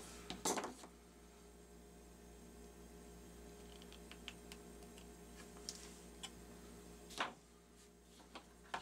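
Small hand tools clicking on a workbench: wire strippers being put down and small flush cutters snipping and trimming thin motor wire. The sound is a few sharp clicks and ticks, with a louder click about half a second in and another near the end, over a faint steady hum.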